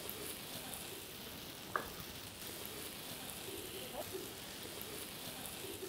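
Carrots, onion and freshly added cubes of tofu sizzling in a frying pan, a steady hiss.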